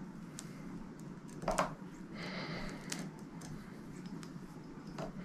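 Faint handling sounds of fishing thread being wrapped around a hook by hand: a few light ticks, with one brief louder noise about a second and a half in.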